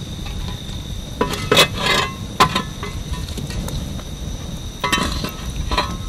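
Campfire coals crackling, with a handful of sharp pops and snaps scattered through, over crickets chirring steadily.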